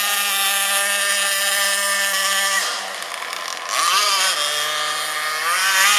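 Segad 26cc two-stroke petrol engine of an RC catamaran boat running at high speed with a steady, high engine note. About two and a half seconds in the throttle is cut and the sound drops for about a second; it picks up again, runs at a lower pitch, then opens back up near the end.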